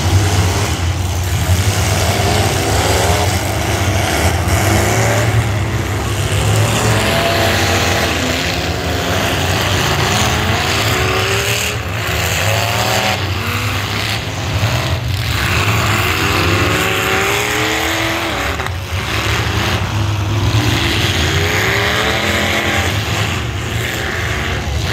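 Demolition derby cars' engines running hard together under a steady drone, revved up and down over and over, with a few sharp bangs as the cars crash into one another.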